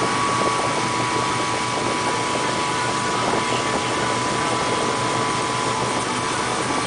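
Tow boat's engine running steadily at speed, with a constant whine over the rush of water and wind.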